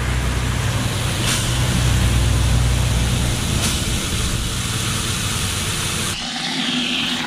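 Water from a garden hose spray nozzle running into a plastic bucket holding a wash mitt, filling a car-wash bucket with shampoo: a steady loud hiss with a low rumble that fades about halfway through, and the sound changes near the end.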